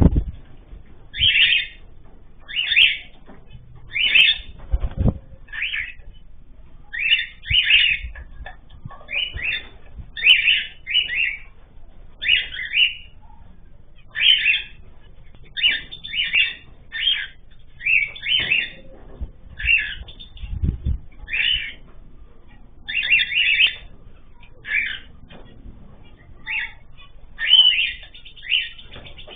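Caged pet birds calling over and over, short sharp chirps about once a second, with a few dull low thumps.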